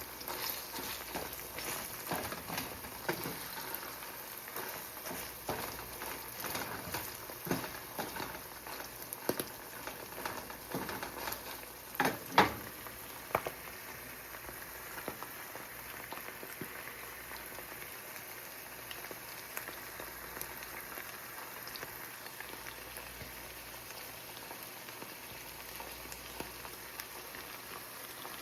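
Egg whites and mushrooms sizzling in olive oil in a frying pan, with frequent small crackling pops that thin out after the first half into a steadier, quieter sizzle. A single sharp knock about halfway through.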